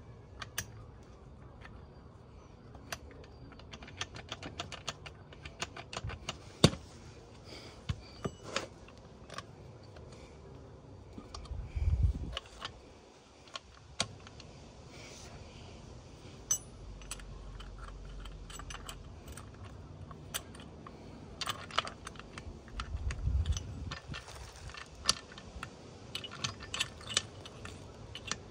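Irregular small metal clicks and clinks of the steel gearbox gears and shafts of a Suzuki RM85 engine being handled and fitted into the crankcase during a rebuild, with a couple of dull low bumps.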